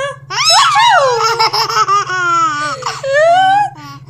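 A nine-month-old baby laughing hard in high-pitched squealing peals that glide up and down in pitch, with a long falling squeal about half a second in and another long peal about three seconds in.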